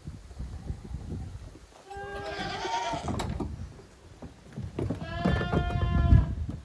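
Goat kids bleating twice: a call about two seconds in, then a longer one about five seconds in, over low rumbling and thumps.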